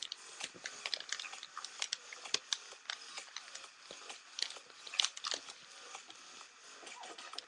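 Paper being folded and creased by hand: irregular crinkles and sharp crackles.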